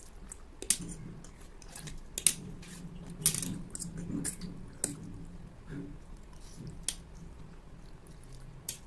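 People eating Maggi instant noodles: wet chewing and slurping with sharp clicks every second or so, the sharpest two about two and three seconds in.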